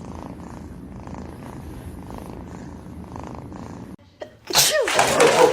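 A domestic cat purring steadily in slow, even breath cycles. About four seconds in it cuts off, followed by a louder stretch of hiss with a cat's meow rising and falling near the end.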